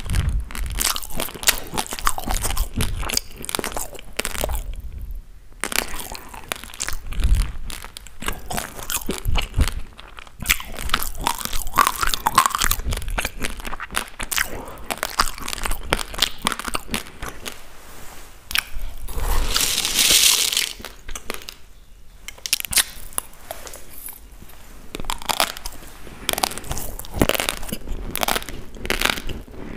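Raw basmati rice grains crunched and chewed close to a clip-on microphone: a dense, uneven run of small crackling cracks. There is a brief hissing rush about two-thirds of the way in.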